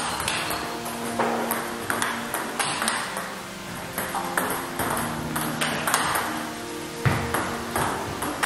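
Table tennis rally: the ball clicking off rackets and bouncing on the table about once or twice a second, over background music with sustained notes.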